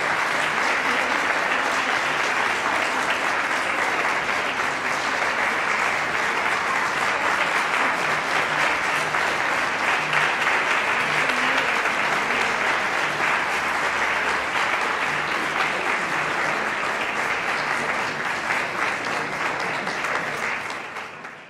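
Audience applauding steadily with dense hand-clapping, fading out near the end.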